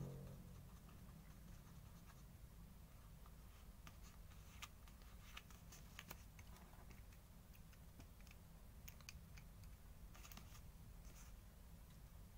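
Near silence over a low steady hum, with scattered faint clicks and scratches: a small applicator stick dabbing paint on cardboard and a die-cast toy car being handled.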